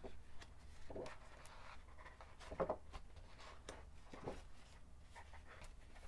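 Sheets of a scrapbooking paper pad being turned and handled: faint paper rustles and soft taps, with a few slightly louder rustles.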